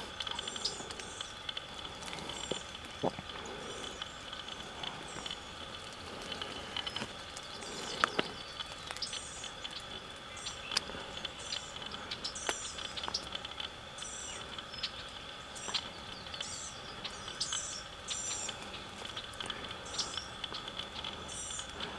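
Quiet field ambience: a small bird giving short, high-pitched chirps every second or so, over scattered light ticks and taps and a faint steady high whine.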